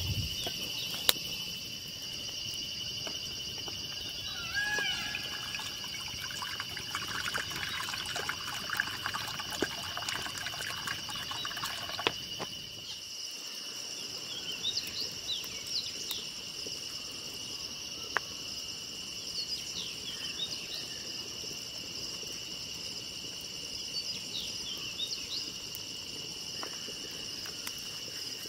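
Steady high-pitched chorus of insects, with faint short chirps over it and a few sharp clicks.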